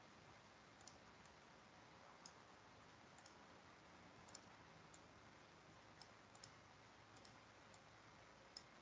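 Near silence with faint, scattered computer mouse clicks, about a dozen at irregular intervals.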